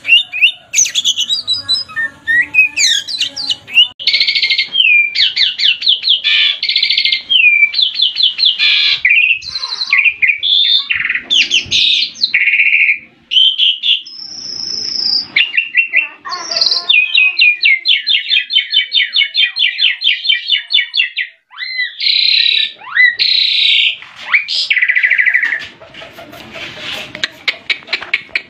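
Songbird singing a loud, varied song of fast trills, rapid repeated notes and clear whistles, changing phrase every second or two.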